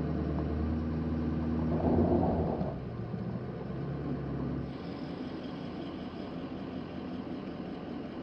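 Pickup truck engine running at low speed, heard from inside the cab while it pulls two loaded grain wagons. The low engine hum swells briefly about two seconds in, then drops away about halfway through, leaving a faint steady hiss.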